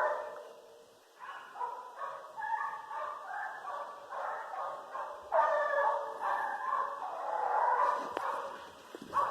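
A pack of American hunting hounds baying on a chase, several dogs' long, drawn-out bays overlapping at different pitches. The baying gets louder about five seconds in.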